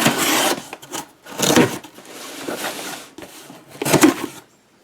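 A cardboard shipping box being handled and opened, in several irregular bursts of scraping and rubbing.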